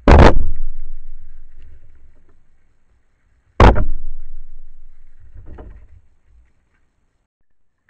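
Two loud gunshots about three and a half seconds apart, each echoing and dying away over about two seconds, then a fainter third bang about two seconds after the second.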